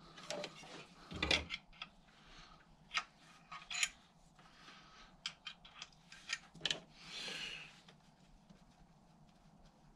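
Scattered small metallic clicks and taps as the clutch-arm adjuster on a classic Mini's pre-verto clutch is wound out by hand, with a knock about a second in and a brief soft rustle around seven seconds in.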